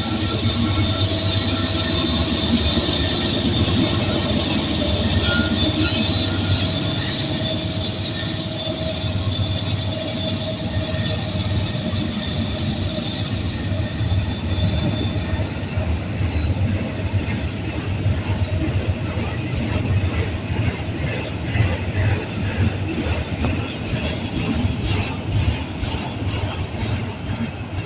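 Union Pacific freight train cars rolling past, with steady wheel and rail noise and a high-pitched wheel squeal that fades out about halfway through. The wheels then click rhythmically over rail joints.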